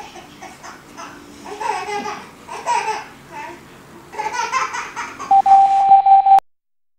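A baby laughing and babbling. Near the end comes a steady beep-like tone of about a second, which cuts off suddenly.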